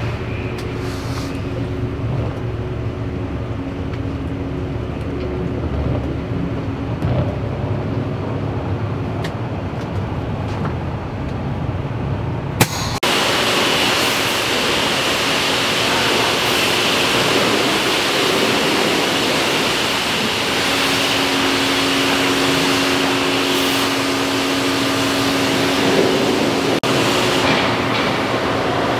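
Heard from inside the motorhome's cab while the wash bay's sprays douse the windshield, there is a steady low rumble with a faint hum. About 13 seconds in it changes abruptly to a loud, steady hiss of hand-held pressure-washer wands spraying the motorhome, over a steady machine hum.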